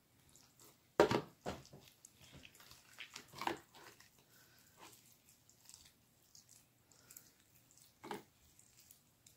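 Hands squeezing and kneading wet homemade glue-and-liquid-starch slime in a plastic bowl: a few short, sticky squelches, the loudest about a second in, others around three and a half and eight seconds.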